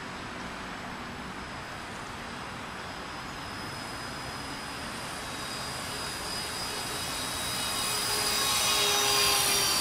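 Motors and propellers of an RC VTOL flying wing, the Typhoon 4D, whining steadily and growing louder as it flies in and passes close by, loudest near the end.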